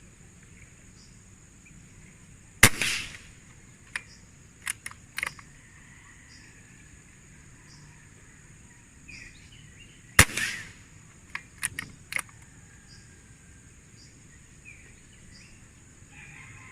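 Two shots from a Gamo Chakal PCP air rifle, about seven and a half seconds apart, each a sharp crack with a short tail. Each is followed within a couple of seconds by a few lighter metallic clicks as the rifle is reloaded. A steady high insect buzz runs underneath.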